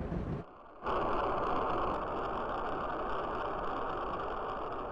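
The tail of a thunder sound effect fades out, then after a brief gap about a second in a steady rushing cartoon rocket-engine sound effect starts and holds evenly.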